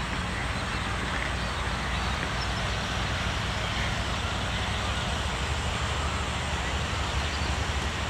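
Steady outdoor background noise: a low, unsteady rumble with an even hiss over it, with no single event standing out.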